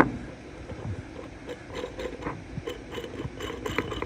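Worn idler pulley bearing spun by hand with the belt off, giving a rough, uneven grinding rattle of small clicks and scrapes: the bearing is shot. It opens with one sharp click.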